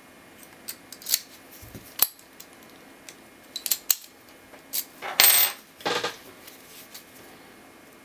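Key sliding into and turning in a Vachette Assa Abloy 70mm brass padlock, a series of small metallic clicks and clinks. The loudest is a short metal rasp with a high ring about five seconds in, followed by a shorter one.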